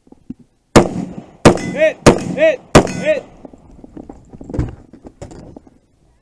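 Four rapid shots from an AR-15-style carbine, about two-thirds of a second apart. Each of the later shots is followed by a short ring from a steel target downrange. A few lighter knocks follow as the rifle is shifted to another port.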